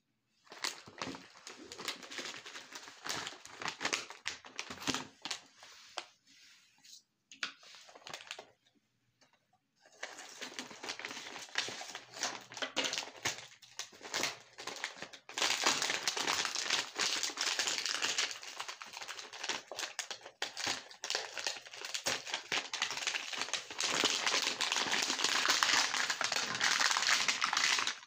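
Hard-candy lollipops cracking and crunching as a meat grinder crushes them: a dense run of sharp crackles, broken by a couple of short pauses, then nearly continuous through the second half.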